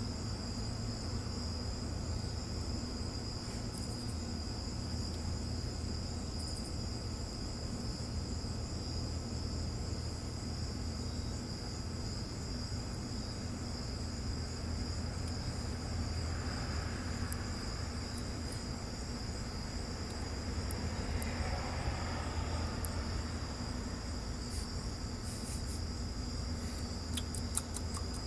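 Crickets trilling in a continuous high-pitched chorus that never breaks, over a steady low hum, with a few faint clicks near the end.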